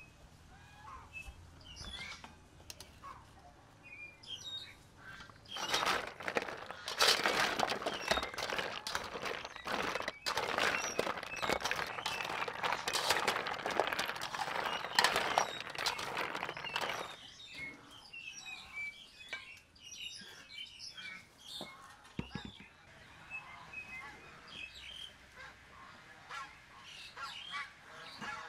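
Ice cubes crackling and clinking among freshly boiled chicken feet in a metal basin, a dense run of clicks lasting about ten seconds in the middle. Birds chirp faintly around it.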